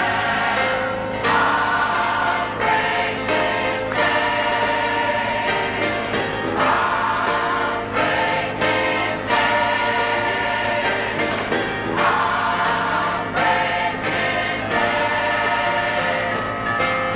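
Large mixed choir of men and women singing a gospel song in full harmony, in long held phrases.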